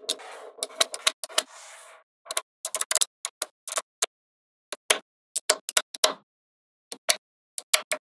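Small magnetic balls clicking as they snap together: a dense rattle of clicking balls for about the first two seconds, then separate sharp clicks a few times a second.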